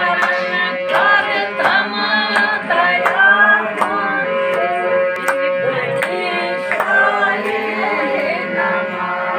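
Harmonium playing held chords under devotional singing, with sharp percussive clicks keeping the beat.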